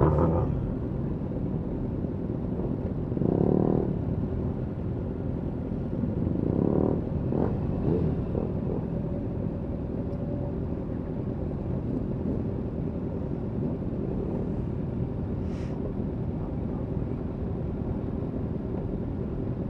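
Motorcycle engines idling in a steady low rumble, with a couple of brief louder swells a few seconds in.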